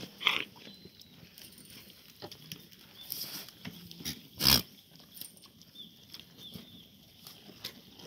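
Goats moving and feeding close by: scattered small scuffs and clicks, with a loud sharp knock about four and a half seconds in.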